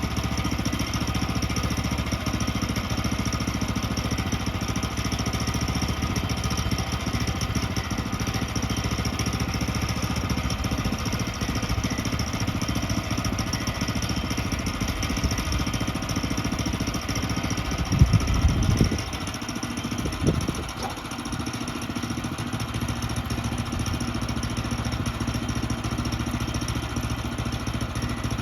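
Gas engine of a portable bandsaw sawmill running steadily under power. About two-thirds of the way through come a couple of heavy knocks, after which it runs a little quieter.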